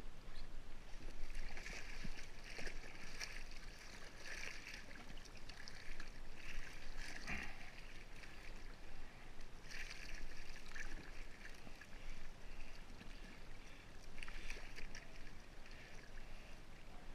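Sea water splashing and slapping against the side of a kayak in short, irregular bursts, churned by a hooked blue shark held on the leader alongside.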